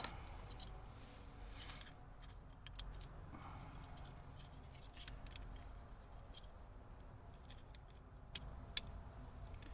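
Small stainless-steel parts clinking and rattling as they are handled and fitted together. There are scattered light metallic clicks, with a couple of sharper ones near the end.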